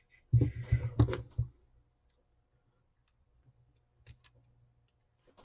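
Handling of small electronic parts on a workbench: a second of rustling with two sharp clicks about a second in, then a few faint ticks near the end.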